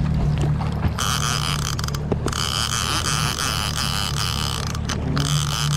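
A large level-wind fishing reel being cranked against a hooked fish, its gears whirring in spells, over the steady low hum of a boat's motor.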